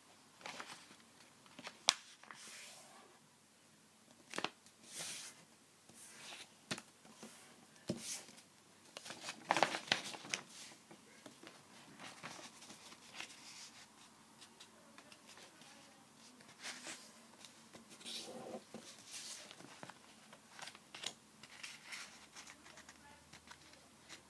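Sheet of paper being folded and creased by hand: irregular rustles and crinkles with short sharp clicks, busiest about ten seconds in.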